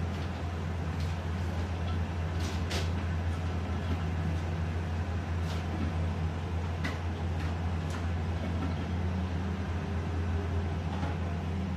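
Gas stove burner running steadily under a lidded wok, a constant low hum and rush, with a few faint light clicks scattered through.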